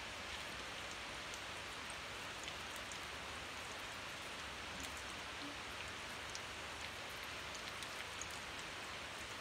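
Breaded eggplant sticks deep-frying in a small pan of sunflower oil: a steady sizzle with scattered small crackles and pops.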